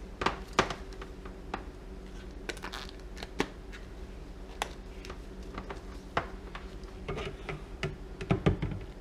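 Soap-making tools and containers being handled: scattered, irregular light clicks and taps over a steady low hum.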